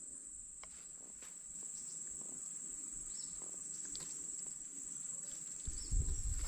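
Steady high-pitched drone of insects, with faint scattered clicks. About six seconds in come a few low thumps as a caught baung catfish is handled and unhooked close to the microphone.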